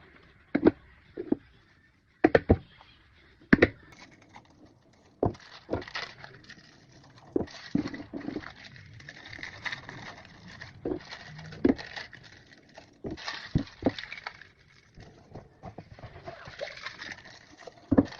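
Scattered knocks and taps of snack items, cups and packets being handled on a table, with young children's voices babbling now and then.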